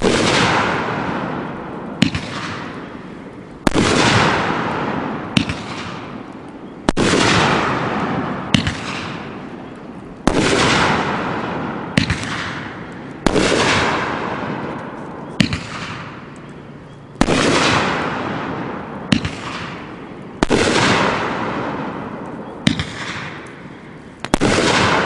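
A 500-gram consumer firework cake firing its Nishiki willow shots one after another, a sharp bang about every one and a half to two seconds. Each bang trails off over a second or more, with smaller pops between some of the shots.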